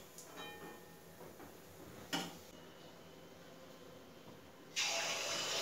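A single light knock about two seconds in, then, about five seconds in, a sudden steady sizzle of malpua batter frying in hot oil in a kadai.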